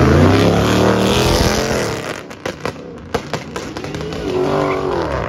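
A car at full throttle sliding past with tyre noise, its engine note rising and then falling away over the first two seconds. After that comes a quieter stretch with a quick string of sharp cracks, and near the end another engine rev that climbs and drops.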